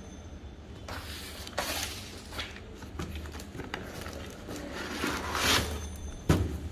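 Handling noise from unpacking: a series of short rustling, scraping swishes over a steady low hum, with one sharp knock near the end.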